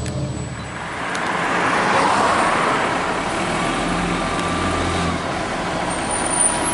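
Road traffic noise, swelling as a vehicle passes about two seconds in, then the low hum of a fire engine's diesel engine as it pulls out of the station bay.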